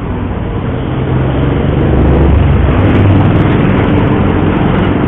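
Yamaha Mio Sporty scooter under way: its small engine runs under a heavy rush of road and wind noise. The sound grows louder over the first two seconds as it picks up speed, then holds steady.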